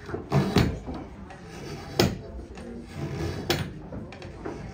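Clogmaker's long hinged block knife cutting into a block of green wood: four sharp cuts, a quick pair near the start, then one about two seconds in and one about three and a half seconds in.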